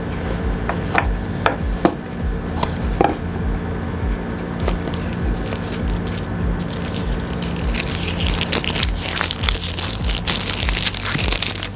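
White cardboard phone box being opened: a few light taps and knocks, then from about 7 s a long stretch of scraping and rustling as the lid and packaging are handled. Background music with a steady beat plays underneath.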